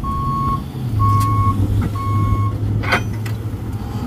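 Heavy wrecker reversing, its back-up alarm beeping three times about once a second over the steady running of its engine. The beeping stops a little before three seconds in, followed by a single sharp knock.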